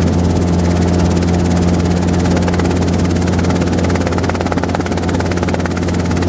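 Robinson R22 helicopter in steady flight, its engine and two-blade main rotor running with a loud, even drone and a fast, regular pulsing.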